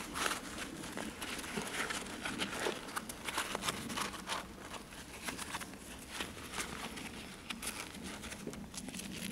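Nylon fabric of a Maxpedition Rollypoly folding pouch rustling and crinkling as hands fold and roll it up, with many small irregular clicks and scrapes.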